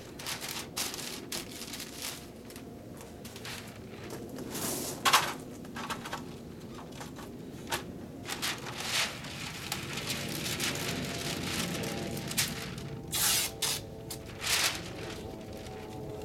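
Masking paper and tape crinkling and rustling as they are pressed and smoothed over a window shutter, with a few short, sharper crackles, the loudest about five seconds in.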